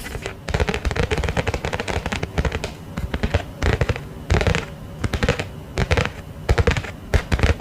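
Crackling and rustling of packaging being handled close to the microphone, a dense run of sharp crinkles and clicks.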